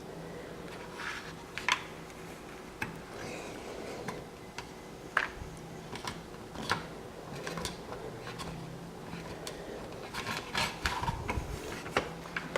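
Hands rolling Play-Doh and handling plastic Play-Doh tools: soft rubbing with scattered light clicks and taps, coming thicker about ten seconds in, over a faint steady hum.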